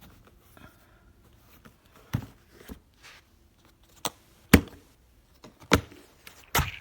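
Hard plastic pistol case being handled: about six sharp clicks and knocks, the loudest about four and a half seconds in.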